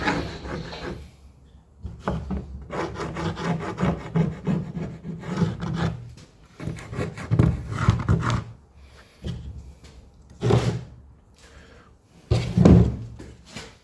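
Wood being rubbed and scraped by hand in irregular strokes about a second long, with short pauses between them.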